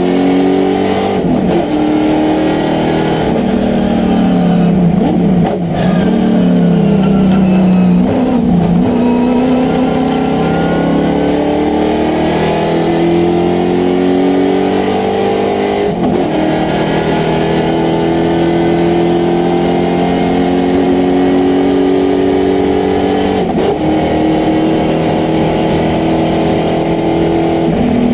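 Sports sedan race car's engine heard from inside the cockpit, running loud under racing load. Early on the pitch drops and breaks as it slows for a corner. Later it climbs under hard acceleration, with two upshifts where the pitch falls back before rising again.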